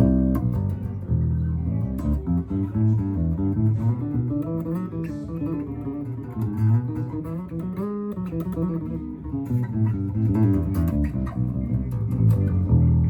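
Electric bass guitar played solo through an amplifier: a continuous run of plucked notes and riffs, with one held note about eight seconds in and a low note ringing out near the end.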